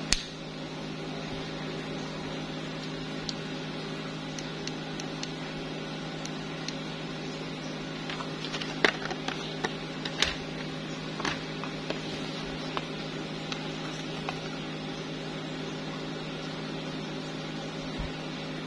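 Steady low hum with several held tones, with a scatter of light clicks and taps from a clear plastic lighter case being handled, most of them bunched around the middle.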